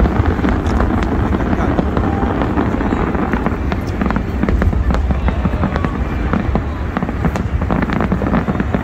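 Aerial fireworks display: a dense, continuous barrage of shell bursts, deep booms running together with many sharp crackles.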